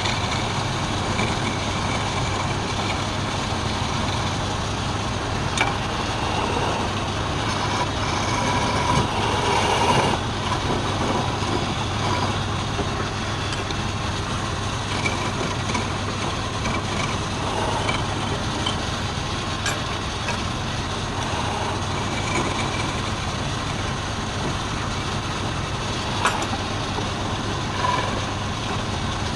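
Wood lathe running steadily: a constant motor hum under a broad hiss, with a few brief knocks.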